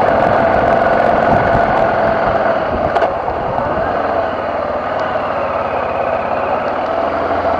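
BMW F650GS motorcycle engine running steadily while riding, with a sharp knock about three seconds in, after which the engine settles a little quieter and lower.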